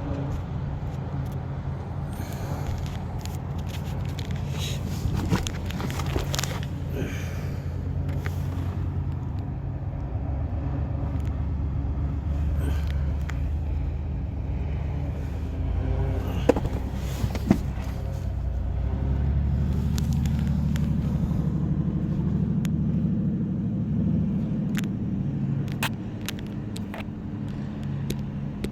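A motor vehicle engine running, a steady low rumble that swells a little twice, with a few sharp clicks and knocks in between.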